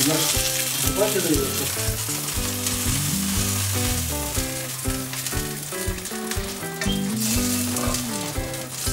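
Zucchini and eggplant halves sizzling in hot olive oil in a stainless-steel frying pan, with scattered clicks and scrapes of a slotted spatula and tongs against the pan as the pieces are turned and lifted out.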